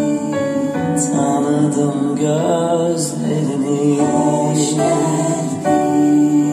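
Recorded music with singing, played from CD through ITT Hyperion H2-70 hi-fi speakers driven by a Grundig V 5000 amplifier, heard in the room.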